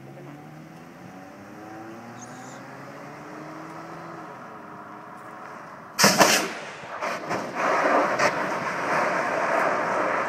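Car engine accelerating, its pitch climbing through the revs. About six seconds in comes a sudden loud blast as the air cannon fires, followed by several crashing impacts and a long scraping rumble as the Mitsubishi Eclipse flips and tumbles.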